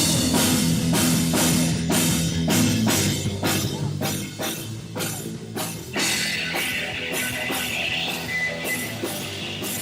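Rock band playing live: drum kit beating a steady rhythm under electric guitar and bass. A high sustained tone joins about six seconds in.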